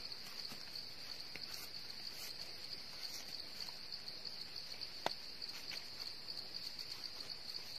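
Insects chirring in a steady, even high-pitched drone, with a few faint scrapes of a knife blade paring soil from a mushroom stem and one sharper tick about five seconds in.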